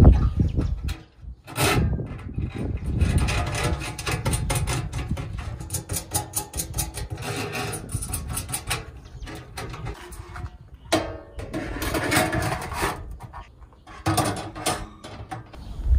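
Stainless-steel grill pans and fittings being handled by a gloved hand: metal rubbing and quick small clicks, with a sharp clank about a second and a half in. Near the end a wire grill rack clatters against the steel pans.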